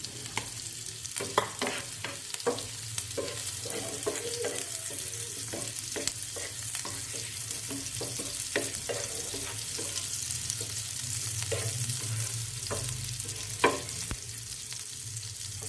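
Green chillies sizzling in hot oil on a tawa, with a steady hiss, while a spatula scrapes and taps the pan as they are stirred. One sharper knock of the spatula comes near the end.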